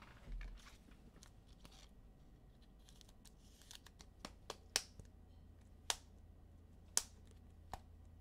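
Faint plastic rustling and about six sharp clicks, most of them in the second half, from a trading card being handled and fitted into a hard plastic card holder.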